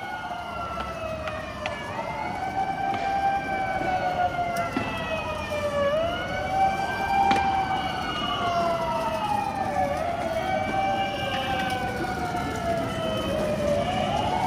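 Emergency vehicle sirens wailing, each pitch sliding slowly up and down every few seconds, with two sirens overlapping out of step. A steady street rumble runs underneath, with a few sharp clicks.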